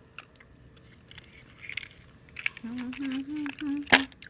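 A woman humming a few closed-mouth "mmm"s while tasting a piece of melon bubble gum, a sign that she likes it. It starts about halfway through, after a quiet stretch, and there is a single sharp tap on a cardboard box near the end.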